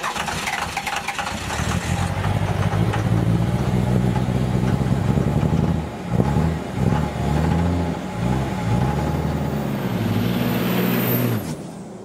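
A motor vehicle's engine running, its pitch dropping and rising again several times as it is revved, over a loud steady hiss; it stops shortly before the end.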